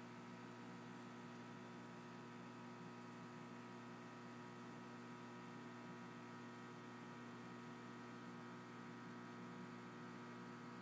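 Faint, steady electrical hum, a stack of unchanging tones over light hiss.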